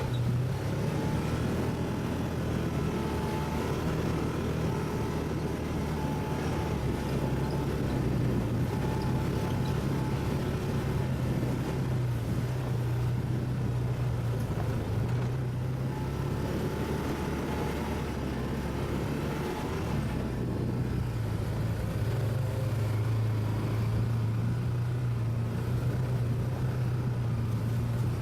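ATV engine running steadily under way, its pitch rising and dipping slightly with the throttle.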